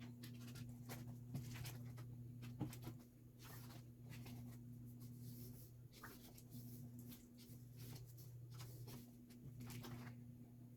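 Album packaging being handled during an unboxing: soft scattered rustles, taps and clicks of paper and card, over a steady low hum.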